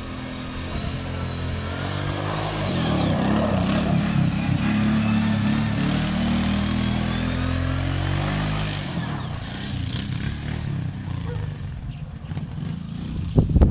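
Quad bike (ATV) engine approaching, passing close and fading away down the road, its pitch rising and falling as it revs. A few sharp knocks right at the end.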